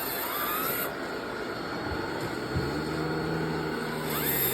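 Radio-controlled scale Liebherr 984 excavator's motors whirring as it works, with a rising whine near the start and again near the end. A steady low hum sets in a little past halfway.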